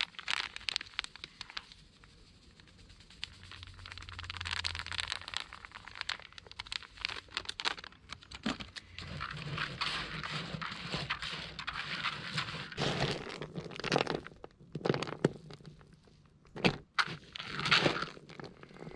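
A plastic packet of hempseed paste crinkling as it is emptied, and a hand mixing it through a bucket of fishing particles (pellets, sweetcorn, cooked hemp seed), with rustling, crackling and scattered knocks.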